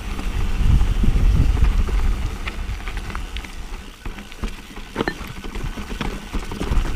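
Mountain bike riding down rough, rocky singletrack on Maxxis Recon and Aggressor tyres: wind buffets the microphone and the tyres rumble over dirt, with scattered clicks and knocks from rocks and the rattling bike, the sharpest about five seconds in.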